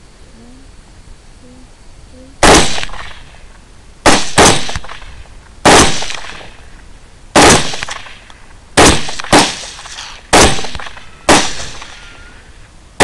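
Rifle fired in a rapid string of nine shots over about nine seconds at uneven spacing, some in quick pairs. Each shot is a sharp crack with a short fading echo.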